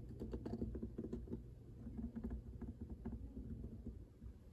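Faint, irregular light tapping and rustling, a hand handling the plastic body of a bedside alarm clock.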